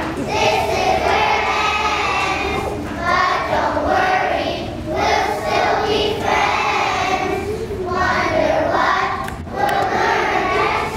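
Choir of young children singing together, in phrases of a second or two with short breaks between them.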